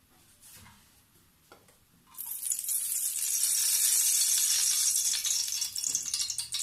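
Hot oil sizzling in a frying pan. The sizzle starts suddenly about two seconds in and runs steady, with scattered crackles.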